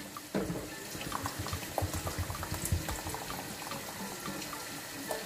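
Thick blended pepper-and-seasoning purée pouring from a Ninja blender jug into a cooking pot, with irregular plops and glugs.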